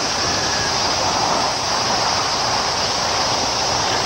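Steady, even hiss of an old television broadcast recording, with no distinct sounds standing out.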